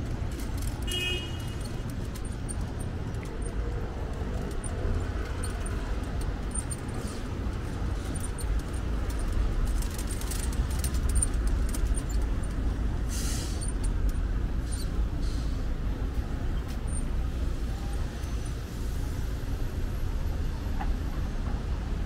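Steady low rumble of city road traffic.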